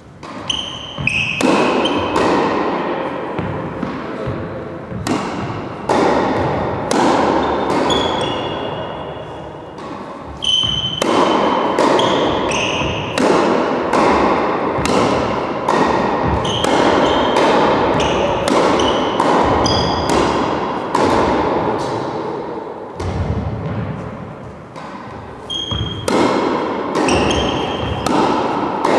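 Tennis balls struck by rackets and bouncing on a wooden court floor, one impact after another about once a second, each with a short ringing ping and echoing in a large hall.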